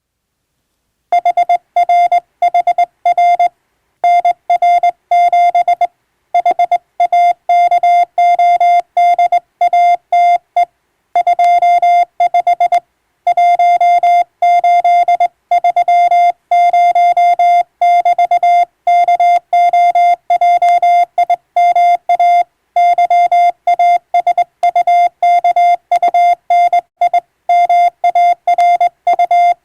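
Morse code (CW) sent as a single steady mid-pitched tone keyed rapidly on and off in dots and dashes, starting about a second in, with short breaks between words; practice sending of English telegram text.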